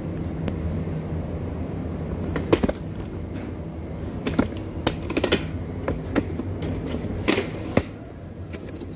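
Irregular sharp clicks and light knocks, about a dozen, over a steady low hum.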